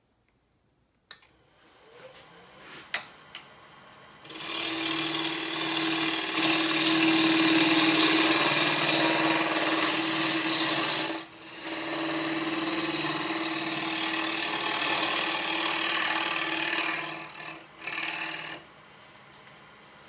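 Wood lathe switching on and running with a steady hum, then a gouge cutting the spinning alligator juniper blank with a loud, even shaving hiss in two long passes, broken by a short pause about halfway through.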